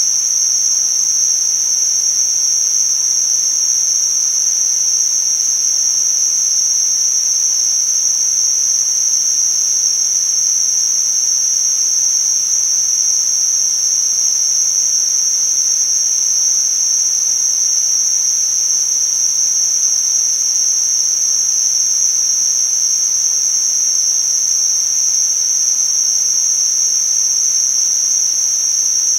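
Synthetic tinnitus-masking noise: a loud, steady, high-pitched hiss held in a narrow pitch band over a fainter wide hiss, unchanging throughout.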